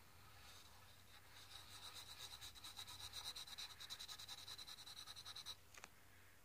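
Graphite pencil scribbling rapidly on lined notebook paper, a quick back-and-forth scratching that starts about a second in and stops abruptly near the end, followed by a brief tick.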